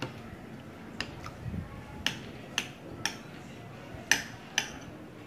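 Eating sounds: about eight sharp clicks and taps at irregular intervals from utensils and chewing while eating. The loudest comes about four seconds in.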